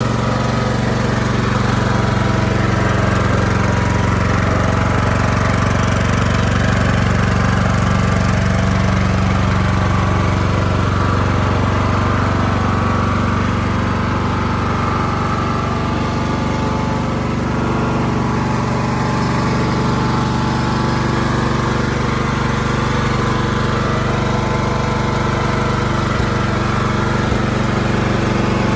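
Husqvarna riding lawn tractor's engine idling steadily, with an even, unchanging pitch.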